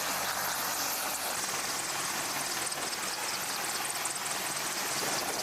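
Helicopter in flight: steady rotor and turbine noise.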